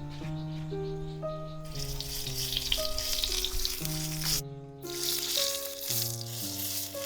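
Food sizzling as it fries, a dense hiss starting about two seconds in, with a brief break just after the middle. Instrumental background music with a melody plays throughout.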